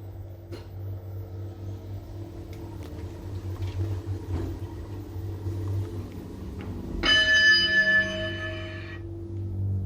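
Schindler 3300 machine-room-less traction elevator car running with a steady low hum, then its arrival chime rings once about seven seconds in, a bright bell-like tone lasting about two seconds that signals the car reaching a floor.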